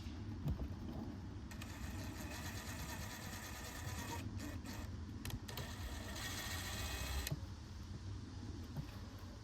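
Cordless drill/driver whining as it drives a screw into the seat bracket, running for several seconds with two brief pauses midway before stopping.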